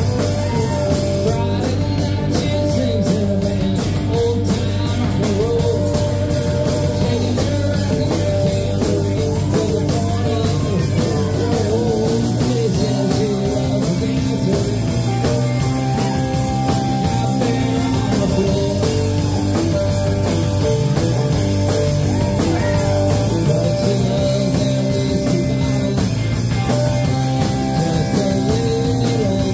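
Live rock band playing: electric guitars, acoustic guitar and drums, with a man singing.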